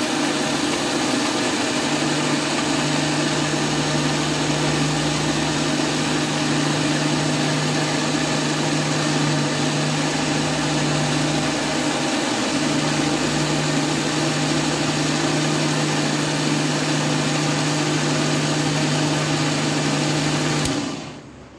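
Electric mixer grinder running steadily with a constant hum, blending mango pulp and sugar in its steel jar. Near the end the motor is switched off and the sound cuts away quickly as it winds down.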